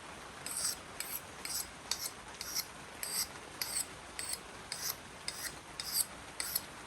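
Hand sharpening tool stroked along the blade of Felco pruning shears: short, even rasping strokes, about two a second.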